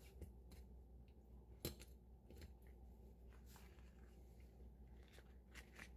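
Near silence broken by a few faint clicks and taps of a kitchen knife on a plastic cutting board as abalone are trimmed and their teeth cut out. One tap about a second and a half in is a little louder.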